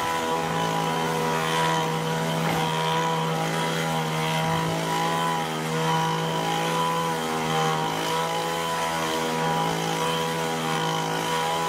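Small petrol engine of an HT230 hedge trimmer running steadily at a constant, high pitch.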